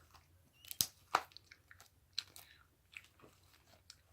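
Foam-bead slime being squeezed and worked by hand, giving scattered wet clicks, pops and crunches, about half a dozen in a few seconds.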